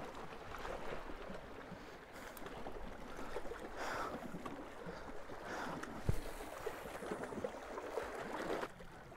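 Small waves lapping against shoreline rocks under a steady hiss, with a single soft knock about six seconds in; the hiss drops away near the end.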